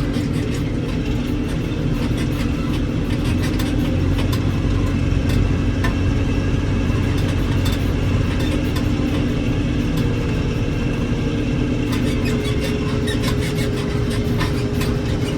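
Heavy-equipment diesel engine running steadily at a constant speed. A faint whine joins in about halfway through.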